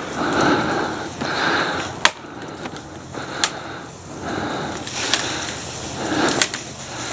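A hand saw cutting through a maple limb, its rasping strokes coming about once a second, with a few sharp cracks of wood between strokes.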